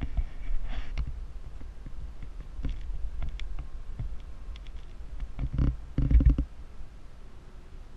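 Wind buffeting the camera's microphone: an uneven low rumble, with scattered clicks and knocks of the camera being handled and a louder bump about six seconds in.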